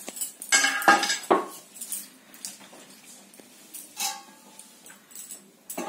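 Stainless-steel bowls clattering and clinking as they are handled, with a burst of clatter about a second in and a few lighter clinks after it, one with a short metallic ring.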